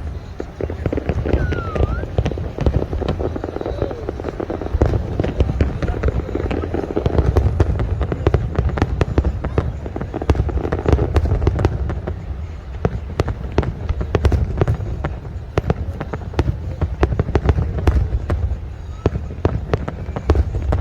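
Fireworks display going off: many sharp bangs and crackles in quick succession over a continuous low rumble, with people's voices in the background.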